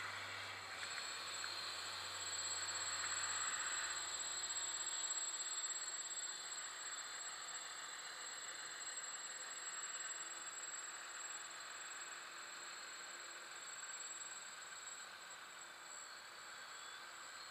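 Faint steady whir of a small quadcopter drone's motors flying some distance away, over an even hiss.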